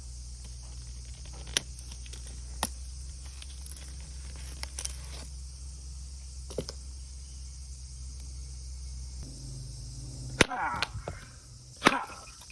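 Large knife striking firewood: a few sharp light knocks, then a loud strike about ten seconds in with a brief ringing after it, and another strike soon after.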